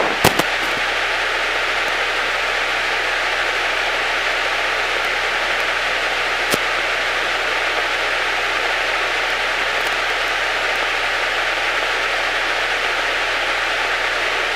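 Steady static hiss on the aircraft's radio and intercom audio, with a sharp click just after the start and another about six and a half seconds in. This is the radio hissing the crew is hunting down, which the pilots suspect comes from a headset jack.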